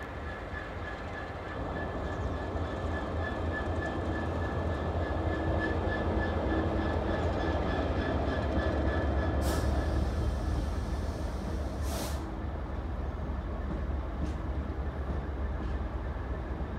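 Freightliner Class 66 diesel locomotive passing at the head of a freight train, its two-stroke V12 engine running, louder from about two seconds in. The loaded box wagons follow with a steady rumble of wheels on the rails. Two brief sharp noises come near the middle.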